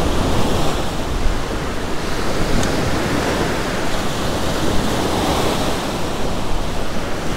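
Ocean surf breaking and washing up the sand at the water's edge, a steady rushing noise.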